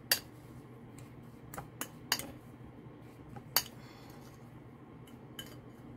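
A metal fork clinking and scraping against a ceramic bowl while mashing brown sugar, olive oil and spice into a thick paste. About seven scattered clinks; the sharpest come right at the start and about three and a half seconds in.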